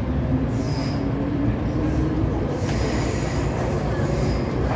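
MTR M-train heard from inside the car as it pulls away into the tunnel: a steady low running rumble with a motor hum rising in pitch over the first second and a half, and faint high wheel squeals about half a second in and again from about two and a half seconds on.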